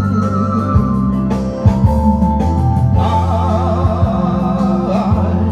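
Karaoke: a man singing into a microphone over a recorded backing track with a steady bass line, both amplified through PA loudspeakers.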